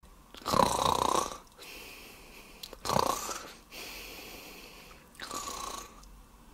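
A person snoring three times, about two and a half seconds apart, each snore followed by a hissing breath out.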